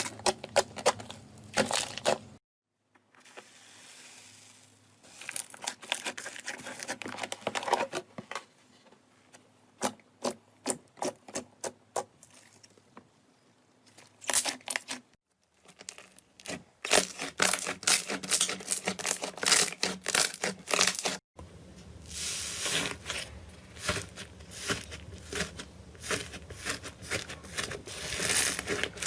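Slime being squeezed, stretched and pressed by hand, making sticky clicks, pops and crackles. It comes in several clips split by brief silences.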